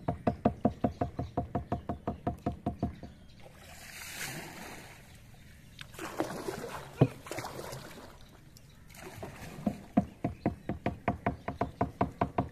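Wooden paddle swishing and splashing through the water of a canoe, with one knock about seven seconds in. At the start and again near the end there is a fast, even tapping rhythm of about six beats a second.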